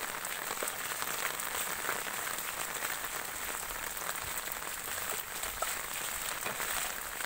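Steady hiss of rainwater running along a street after rain, with many faint scattered ticks of water.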